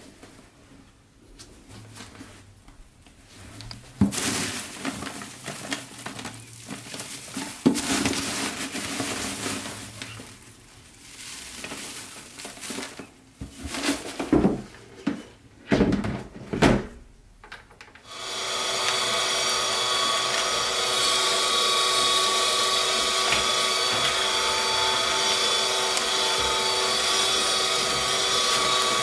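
Irregular rustling of shredded paper and knocks of a hard plastic bin being handled. About 18 s in, the AmazonBasics 12-sheet cross-cut paper shredder's motor starts up and runs steadily.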